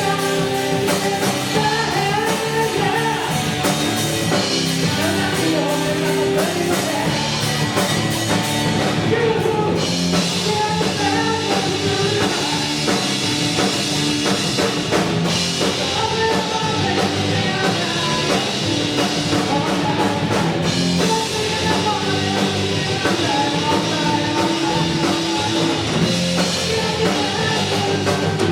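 Rock band playing: electric guitar and drum kit with a singer's vocals, loud and continuous.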